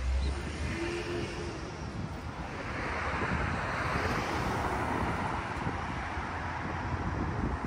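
Wind buffeting the microphone with a steady low rumble, while a car passing through the intersection brings a hiss of tyre noise that swells from about a third of the way in.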